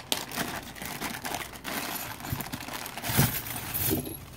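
Small clear plastic zip-top bag crinkling and rustling as it is handled and opened, with a louder rustle about three seconds in.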